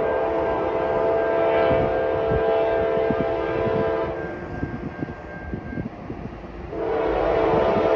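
Diesel freight locomotive's multi-chime air horn sounding a long blast that breaks off about four seconds in, then another blast starting near seven seconds, over the low rumble of the approaching train.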